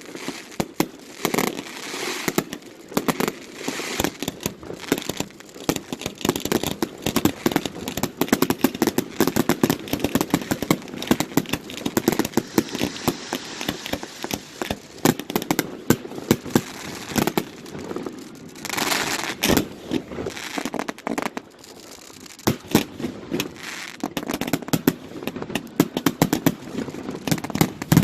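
Fireworks finale: a rapid, continuous barrage of shell bursts and crackling, dense and overlapping, with a heavier run of bangs about two-thirds of the way through.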